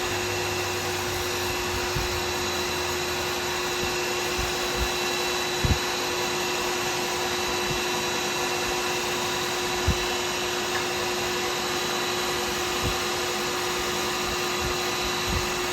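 Wood lathe motor running at a steady speed, spinning a pen blank during wet sanding: an even hum with a constant tone, and a couple of soft knocks.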